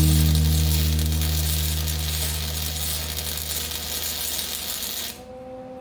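Background music ending on a held low chord that slowly fades, over a steady hiss. The hiss cuts off suddenly about five seconds in, leaving a few faint steady tones.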